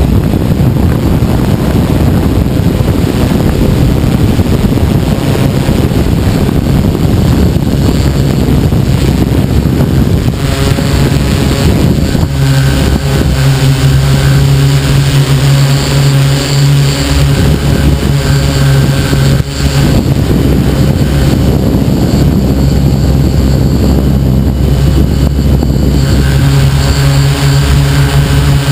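Tarot 690S hexacopter's electric motors and propellers running with a steady drone, heard from the craft itself. Heavy wind noise on the microphone covers the first half, then a steady low hum with overtones comes through clearly from about twelve seconds in.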